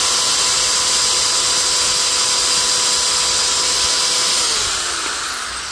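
Corded electric drill running at a steady speed as it bores a pilot hole into a small wooden block. Near the end it winds down, its pitch falling.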